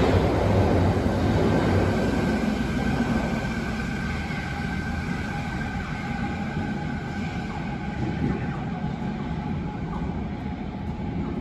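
Fukuoka City Subway 3000A series linear-motor train pulling out of the station, its running noise fading away over the first few seconds. A faint steady whine lingers over the station's background hum.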